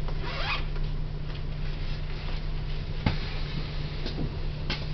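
City bus engine running with a steady low drone, heard from inside the bus, with a couple of sharp clicks, about three seconds in and near the end.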